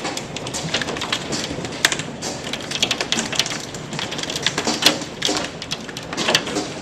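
Hail falling: a dense, irregular clatter of hailstones striking hard surfaces over a steady hiss.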